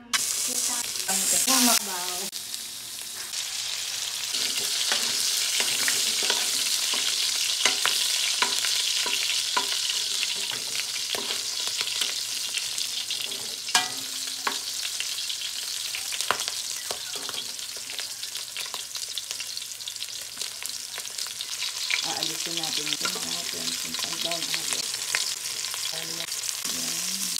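Pork cubes frying in a stainless steel wok, a steady sizzle as their fat renders out, with frequent clicks and scrapes of a metal spoon against the pan as the pieces are stirred.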